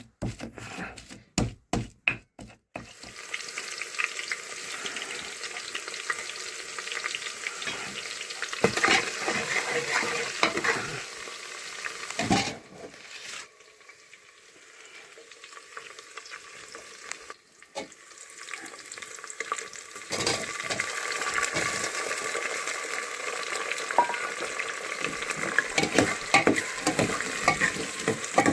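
Food frying and sizzling in a pan while it is stirred, a crackling hiss that drops lower for a few seconds in the middle.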